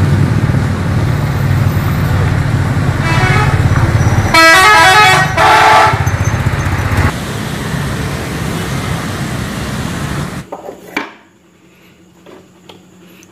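Diesel engine of a long-distance coach running loudly as the bus pulls away, with its horn sounding a string of short, rapidly changing notes about three to six seconds in. The engine sound then fades and stops abruptly at about ten seconds, leaving a few faint clicks.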